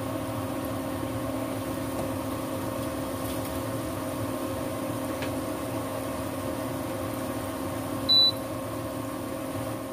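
Cassava getuk balls deep-frying in a saucepan of hot oil, the oil sizzling steadily over the steady hum of an induction cooktop. A single short, high beep sounds about eight seconds in.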